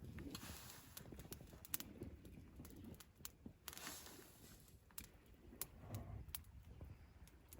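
Campfire crackling faintly, with scattered irregular sharp pops and ticks.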